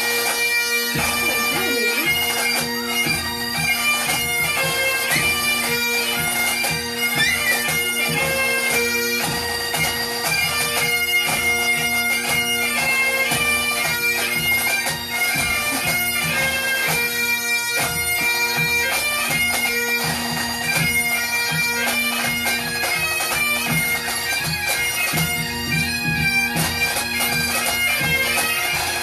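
Bagpipe music played back through speakers: steady drones under a chanter melody that steps from note to note, from a noise-conditioning recording.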